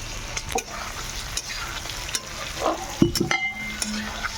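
Food frying and sizzling in a hot pan while it is stirred, the utensil knocking against the pan several times, with a short ringing clink about three seconds in.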